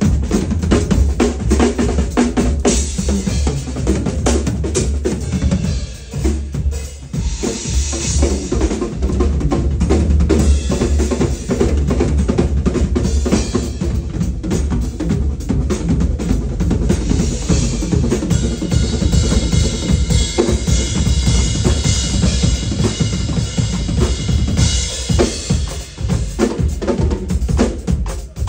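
Acoustic drum kits played fast in a drum shed: rapid snare and tom fills over bass drum kicks and cymbal crashes, almost without a pause, with a brief dip about six seconds in.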